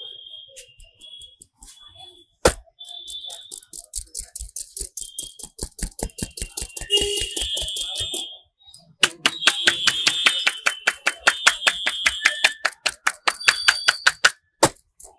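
A barber's hands striking rapidly and evenly in a percussive massage, about five slaps a second, after one single loud slap; the strikes pause briefly about two-thirds of the way in and then resume. A high whistling tone comes and goes over the slapping.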